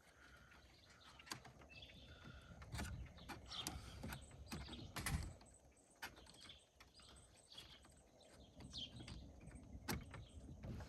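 Faint, irregular clicks, taps and rustling of hands handling small metal fittings and tools, with a few sharper knocks.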